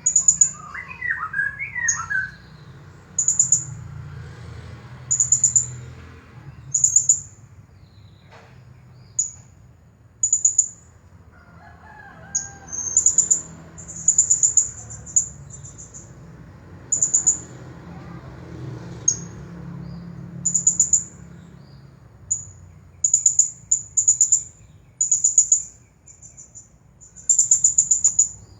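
Blue-crowned hanging parrot (serindit) calling nonstop: short, very high-pitched trilled chirps, repeated about once a second.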